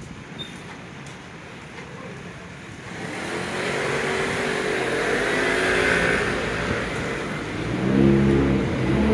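Bus engine running close by, getting louder from about three seconds in, its pitch rising and falling as it revs; a deeper, louder engine note comes in near the end.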